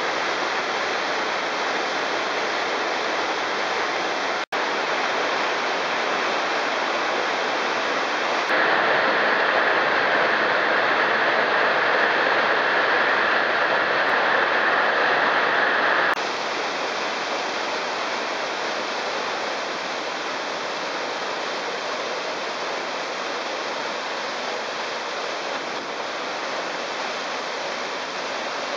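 Waterfall pouring into a rock pool: a steady rush of falling water. It grows louder for a stretch in the middle and briefly cuts out once near the start.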